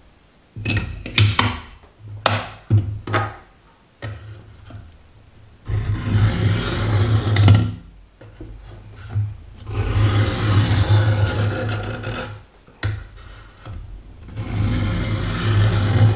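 Knife blade scraped along the sharpening stone of a Work Sharp guided sharpener, in three spells of rough, gritty strokes, after a few clicks and knocks of the parts being handled in the first few seconds.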